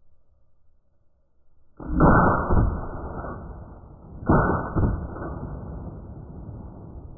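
Beretta 1301 semi-automatic 12-gauge shotgun firing: a first burst of shots about two seconds in and another about two and a half seconds later, each loud and trailing off in a long echo.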